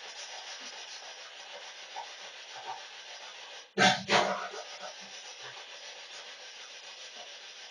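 Spirit box radio-sweep static: a steady hiss, broken about four seconds in by a brief dropout and then a sudden, short, loud burst.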